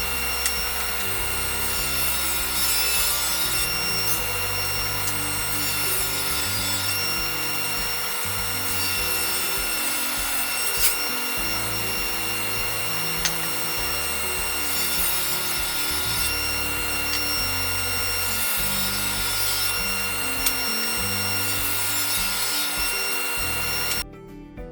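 Table saw running and ripping through a solid maple butcher-block plank: a steady motor and blade whine with the rasp of the cut and a few sharp clicks, with music playing underneath. The sound cuts off abruptly near the end.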